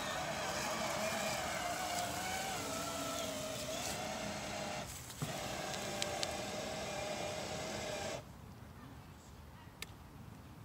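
Battery-powered ride-on toy motorcycle's electric drive motor whining steadily while driving, cutting out briefly about five seconds in and stopping about eight seconds in. A few faint clicks follow.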